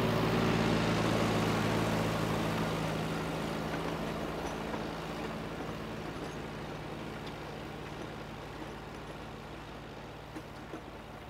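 Allis-Chalmers D17 tractor's four-cylinder engine running at a steady speed while plowing snow, growing gradually fainter.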